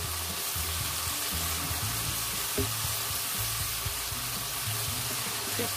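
Julienned vegetables sizzling in a non-stick wok as they are stirred and tossed with a silicone spatula, with background music underneath.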